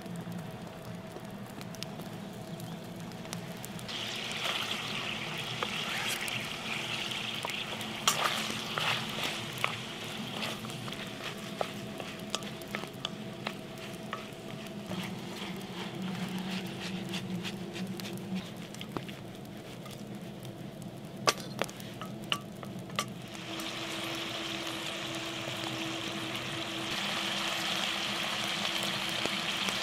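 Diced pork and onion sizzling in a black wok, stirred with a utensil that clicks and scrapes against the pan. The sizzle swells about four seconds in, eases off in the middle, and swells again for the last several seconds.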